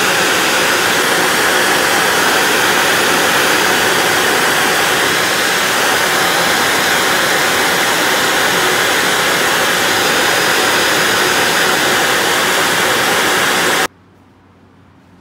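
Blow dryer blowing steadily as it dries a wet cat's fur after a bath, with a loud, even hiss of rushing air that cuts off suddenly near the end.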